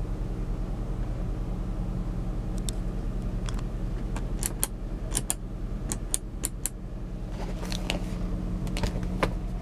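Proton Perdana V6 engine idling steadily, heard inside the car's cabin. From about three seconds in, a run of a dozen or so sharp plastic clicks comes as the overhead console's switches are pressed.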